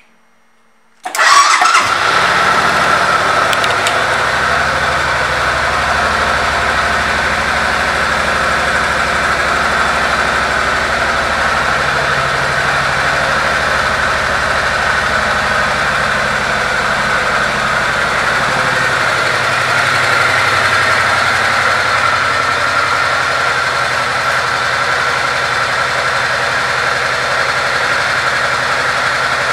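2005 Suzuki Boulevard C90's V-twin engine starting about a second in, then idling steadily.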